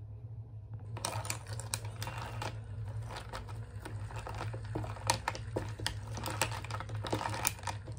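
A thin wooden stirrer stirring a strawberry milk drink in a glass, with a quick, irregular run of light clicks and taps against the glass starting about a second in, over a low steady hum.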